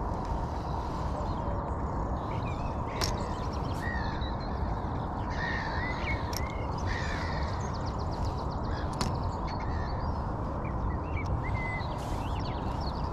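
Birds calling in short chirps, several times over a steady low rumble, with a couple of sharp clicks.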